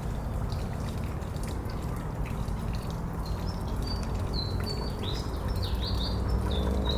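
Streak-eared bulbul chirping: a quick series of short, high chirps, some sliding downward, starting about halfway through, over a steady low rumble.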